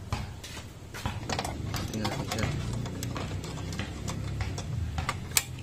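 A fluorescent tube and loose wires being handled in a sheet-metal light fixture: a string of irregular clicks, taps and knocks as the tube is set into its lamp holders.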